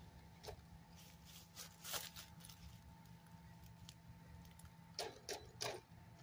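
Very faint: the Traxxas X-Maxx RC truck's electric motor whines softly as the truck creeps slowly over leaf litter. The whine stops about five seconds in, followed by three sharp crackles close together.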